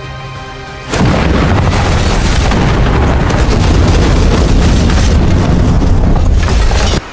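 Bomb explosion: a sudden loud blast about a second in, then a deep sustained rumble lasting about six seconds that ends abruptly.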